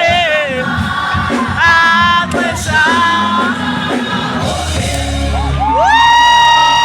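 Group of voices singing with music and crowd noise behind them; near the end one voice swoops up into a long held high note.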